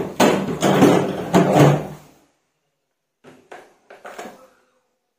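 Hard plastic wall tool rack being handled and lifted: a loud scraping, rattling clatter for about two seconds, then a few lighter knocks.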